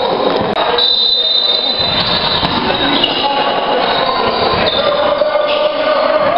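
Basketball shoes squeaking on a hardwood gym floor as players run, several high squeals of up to about a second each, over the steady din of a gym crowd.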